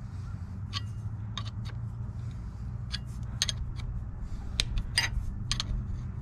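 Scattered metallic clicks and clinks of a wrench turning the forcing screw of a gear puller as it pulls a cast iron hand wheel off its hub, with a steady low hum underneath.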